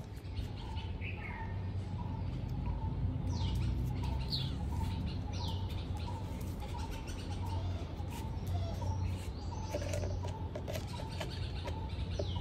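Small birds chirping in quick falling notes several times, with a short note repeating about twice a second, over a steady low hum.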